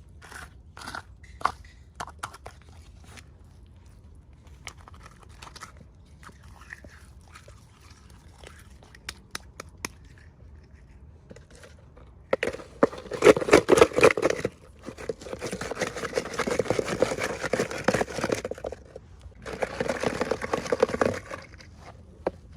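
Toy packaging being handled and opened: scattered light clicks and taps, then three stretches of loud crinkling and crackling, about twelve, fifteen and nineteen seconds in.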